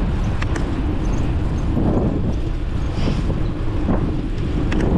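Wind rumbling on the microphone during a bicycle ride, with steady road and traffic noise under it and a few light clicks near the start and again near the end.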